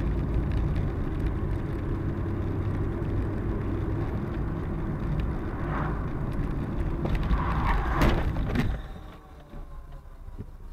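Road noise inside a moving car picked up by a dashcam: a steady low rumble of engine and tyres, with a few brief louder sounds over it. The rumble drops away sharply about nine seconds in as the car slows.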